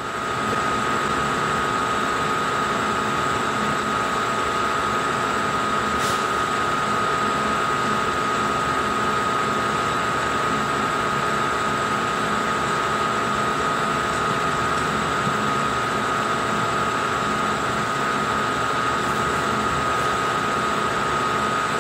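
Milling machine running a 3/8-inch end mill as it cuts a slot through steel plate: a steady high-pitched whine over cutting noise.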